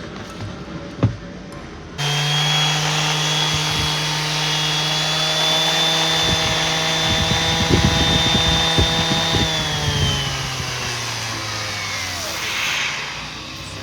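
Bosch GEX 125-1 AE random orbital sander switched on about two seconds in, running steadily with a high whine and some irregular knocking, then switched off and winding down with falling pitch. The noise is taken by the repairer as the sign of a failed bearing.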